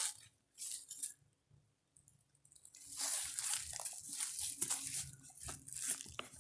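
Footsteps crunching along a trail: a few steps, a pause of over a second, then steady crunching walking from about three seconds in.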